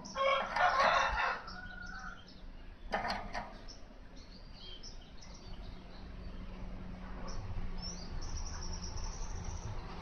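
Male Asian golden weaver giving its harsh, scratchy chattering song. It opens with a loud burst, has a shorter burst about three seconds in, and ends with a thin high trill.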